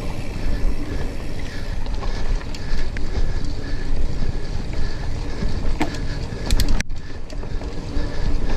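A mountain bike riding a dirt singletrack: a steady rumble of tyres and wind buffeting the microphone, with a few sharp clicks and rattles from the bike over bumps about six seconds in. The audio cuts out for a moment just before seven seconds.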